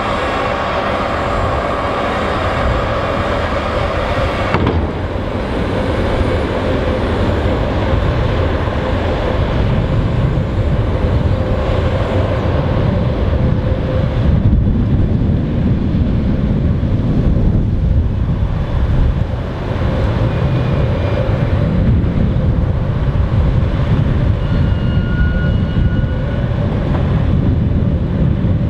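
Mercedes-Benz Actros 510 truck's diesel engine running steadily while the hydraulics raise the tipping trailer's body to dump sawdust. A steady higher tone over the engine rumble stops about five seconds in.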